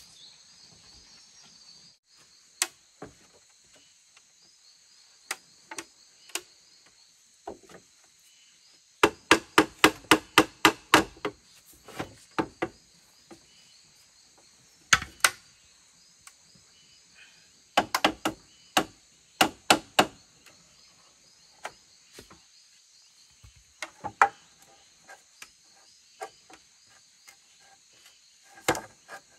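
Sharp, irregular blows of a tool on bamboo. A quick run of about ten strikes comes in the middle, with another cluster a few seconds later and single knocks in between. Steady insect chirring runs underneath.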